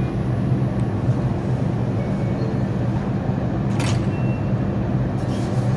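New York City subway train standing at the platform with the doors closing, its equipment giving a steady low hum. A short hiss of air comes about four seconds in.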